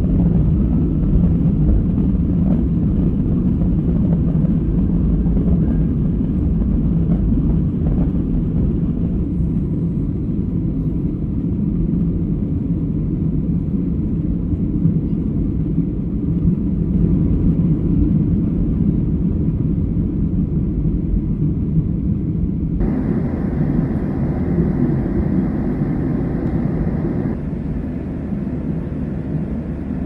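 Boeing 737 jet engines at takeoff thrust, heard from inside the cabin as a steady, loud rumble during the takeoff and climb. For a few seconds about three-quarters of the way through, a louder hiss joins it.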